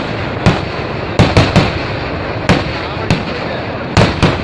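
Fireworks going off: about eight sharp bangs in four seconds at uneven spacing, some in quick succession, over a steady background rumble of noise.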